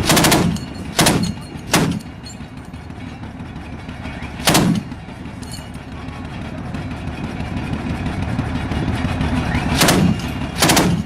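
Six separate gunshots with short echoes: three in the first two seconds, one about halfway, and two near the end. Under them runs a steady low rumble.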